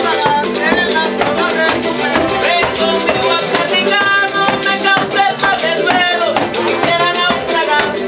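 Son jarocho ensemble playing: several jaranas strummed in a fast, steady rhythm, a tambourine jingling along, and a man singing over them.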